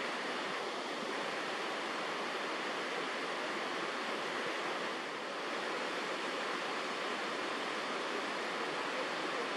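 A steady, even rushing of water, with no breaks or distinct events.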